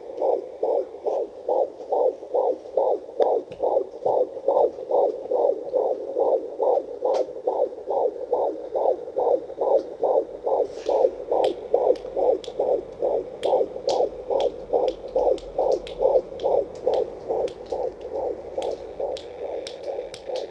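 Fetal heartbeat at 15 weeks heard through a handheld fetal doppler's speaker: a fast, steady pulse, about two and a half beats a second. Faint clicks join in from about halfway through.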